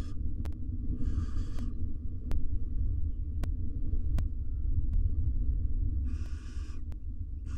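Barn owls giving two harsh hissing 'snore' calls, each about half a second long, roughly five seconds apart, with another starting at the very end. Under them runs a steady low rumble and a few faint ticks.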